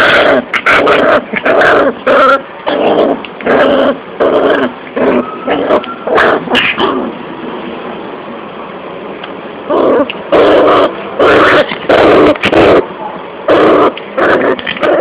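Bull terrier barking and yipping in quick short bursts, worked up and angry, with a pause of a few seconds midway.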